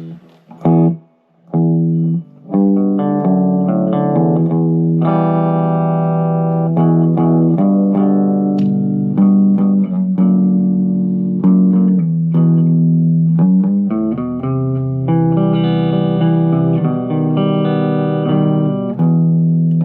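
Electric guitar played through the clean channel of a Marshall MG15MSII micro stack with its stock speakers: picked notes and strummed chords, with a couple of short breaks near the start, then continuous playing.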